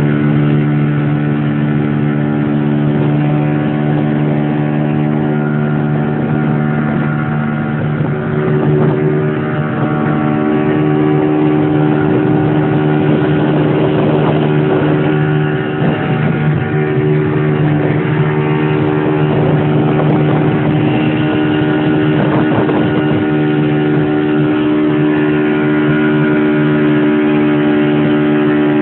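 Boat engine running at a steady speed, a constant even hum with no change in pitch.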